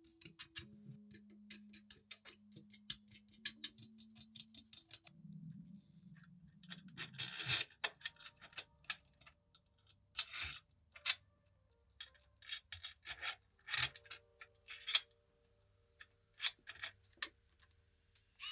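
Small metal parts of a steam engine model kit clicking and clinking as they are handled and fitted by hand. The clicks come quickly at first, then more sparsely with a few louder clacks. Quiet background music with held notes plays underneath.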